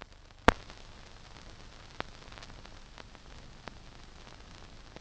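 Surface noise of an old 1930s film soundtrack: a steady hiss with a few sharp pops, the loudest about half a second in and smaller ones around two seconds and near four seconds.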